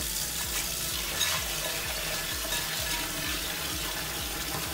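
Kitchen tap running in a steady stream into a glass bowl of black chickpeas in a stainless-steel sink. A hand stirs the chickpeas around in the rising water.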